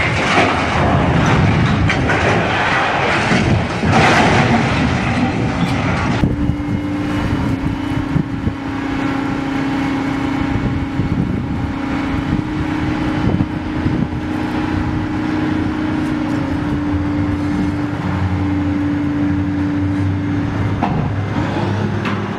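Loud, rough noise as a large crawler crane topples over. About six seconds in it cuts to a mobile crane's engine running at a steady hum, its pitch shifting slightly a few times, while it lifts a cut section of tree trunk.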